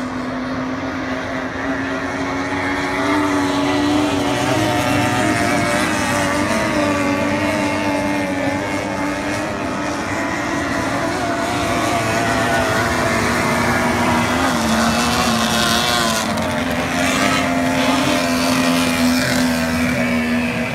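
Several racing tunnel-hull boats' 50 hp outboard engines, mostly Yamahas, running flat out as the boats pass. The sound is a steady, high engine note with a slight waver. It grows louder about three seconds in.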